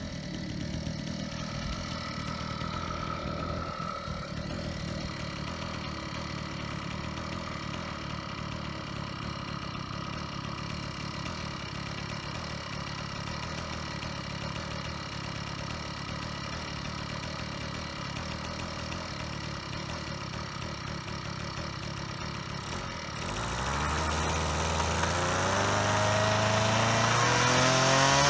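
Xcooter Thunder XC1000-ATX scooter's small gas engine idling steadily, then revving up about 23 seconds in with a rising pitch that peaks near the end. Its Walbro carburetor's high-speed mixture is being adjusted; the owner suspects it runs rich at speed after the pilot jet was opened.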